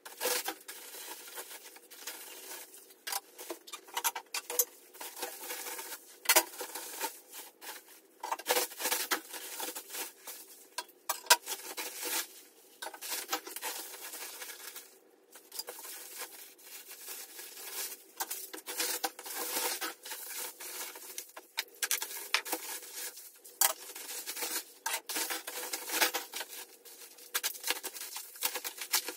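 Motorcycle parts being handled and set down on a workbench: irregular clinks, knocks and rustling throughout.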